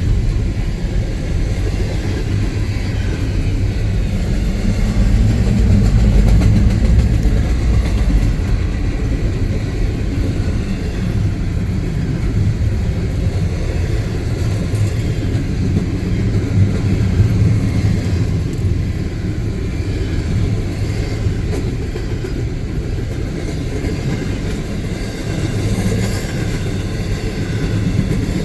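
Train rolling past: a steady, loud low rumble that swells slightly a few seconds in and then holds.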